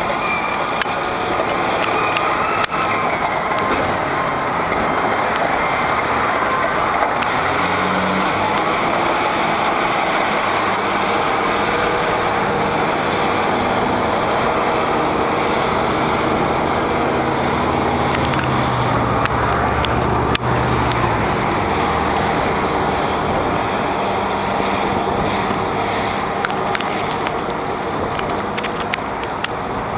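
Caterpillar D8R bulldozer's six-cylinder diesel engine working hard as the machine climbs and pushes on a salt pile, its pitch rising and falling with the load. Scattered sharp clanks come from the steel tracks.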